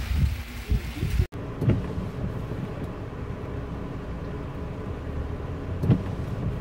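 About a second of rain and wind in the open, with dull buffeting thumps on the microphone. It is then cut off sharply by the steady low rumble of a car cabin with the engine running in the rain, with two dull knocks.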